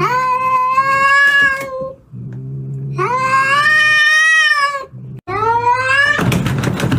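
A ginger domestic cat yowling at another cat: three long, drawn-out wails, each rising at the start and then held. Between the wails there is a low, steady growl. Near the end the wailing gives way to a rough, noisy scuffle of sound.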